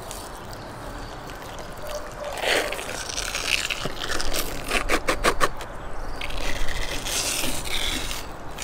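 Wet squelching and scraping as the thin membrane is peeled off a raw liver by hand, with a quick run of about seven sharp clicks about halfway through.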